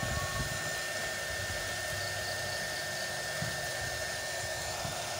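Small craft heat gun running, a steady blowing hiss with a thin steady whine, as it heats plastic wrap to shrink it tight around a small box.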